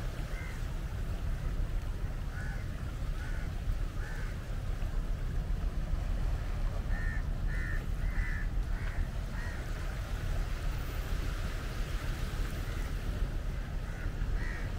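Crows cawing: scattered short caws in the first few seconds, then a quick run of five or six caws about seven to nine and a half seconds in, over a steady low rumble.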